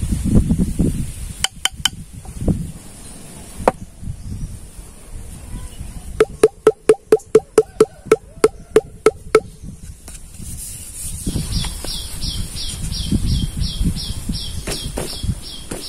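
A knife shaves and scrapes a green bamboo tube, with a few single clicks. Then comes a quick, even run of about fourteen hollow, ringing knocks on the tube. More scraping of the blade along the bamboo follows, with a high chirping call repeating a few times a second in the background.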